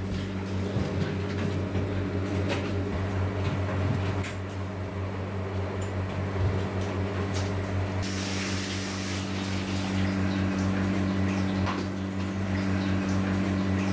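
Steady low machine hum with a few light clicks and knocks; a soft hiss joins about halfway through.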